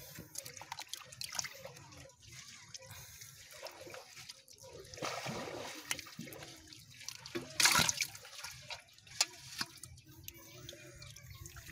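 Hands splashing and scooping in a shallow hole of muddy water while grabbing fish, with drips and many small splashes; one louder splash comes about two-thirds of the way through.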